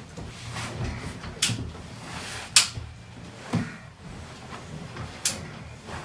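Padded chiropractic table creaking and shifting under a heavy patient as he rolls onto his side, with four sharp clicks spread through it, the loudest about two and a half seconds in.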